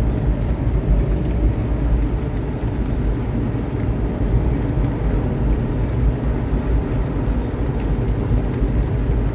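Steady low rumble of road and tyre noise inside a Chevrolet Corvette C8 Z06's cabin while driving on wet pavement.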